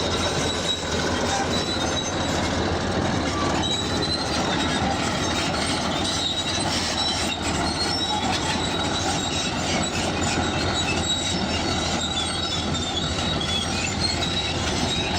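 Bulldozer working, its engine running steadily under the clanking of steel crawler tracks, with many short high squeaks from the tracks.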